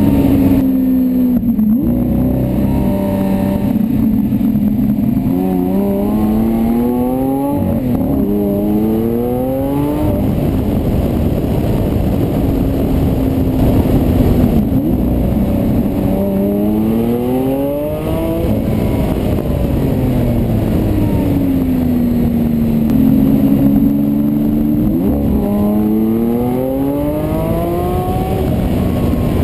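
Lamborghini Aventador LP700-4's V12 engine and exhaust, heard close up at the car's rear. It accelerates in several pulls, rising in pitch with brief breaks at the upshifts, and falls away in long glides as the car slows between pulls.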